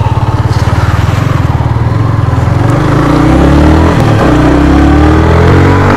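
Yamaha MT-15's single-cylinder engine idling with an even, fast putter, then pulling away about two and a half seconds in, its pitch rising as it accelerates, with one upshift about four seconds in before it climbs again.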